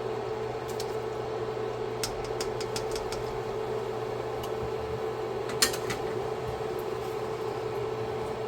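Steady hum of a kitchen fan. Over it, light clicks and taps of a utensil against a pan as sun-dried tomatoes go into the simmering sauce, with one sharper knock about five and a half seconds in.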